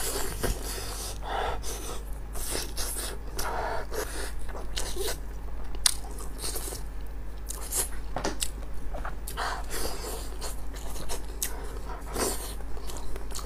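Close-miked eating: a person biting and chewing braised sheep head meat and offal in chili sauce, with irregular short clicks and mouth noises.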